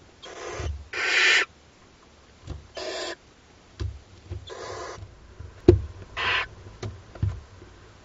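Barn owl nestlings giving harsh hissing snore calls, the chicks' begging call, about five in a row, each about half a second long. A few sharp knocks fall between them, the loudest a little past the middle.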